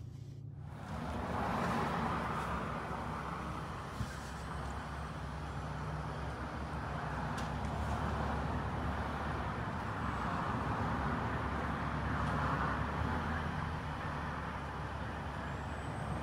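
Car driving: steady road and engine noise heard from inside the cabin, with a light click about four seconds in.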